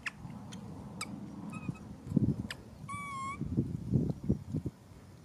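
An infant macaque gives a short, high, wavering whimper about three seconds in, with fainter cry fragments shortly before. This is typical of an infant being refused its mother's milk. Soft rustling thumps from the monkeys moving on the rock run under it, the loudest about two seconds in.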